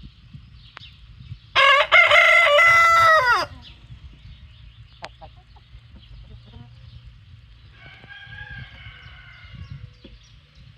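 A rooster crows once loudly, a call of about two seconds that drops in pitch as it ends. A fainter crow follows near the end.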